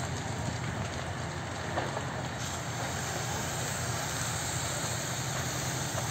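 Steady noise of a burning shed being hosed down. A firefighter's hose jet hisses against the fire over the even low hum of a running engine.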